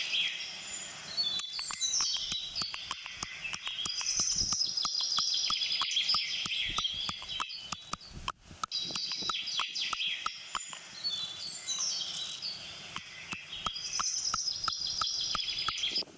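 Whole spices (cinnamon, cloves, cardamom and black peppercorns) being pounded to crush them: a steady run of quick, irregular knocks, with birds chirping and singing throughout.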